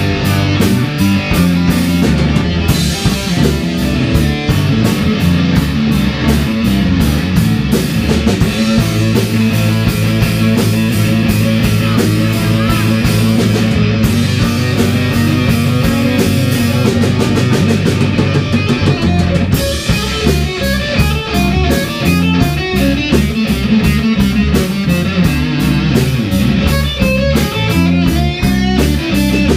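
Live rock band playing: electric guitars, bass and drum kit, loud and continuous, with a steady drum beat.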